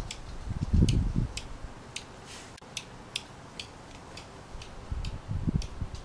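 A small bird giving sharp, repeated chip calls, about two to three a second, the alarm scolding of a parent bird near its nest. Low rumbling noise on the microphone comes about a second in and again near the end.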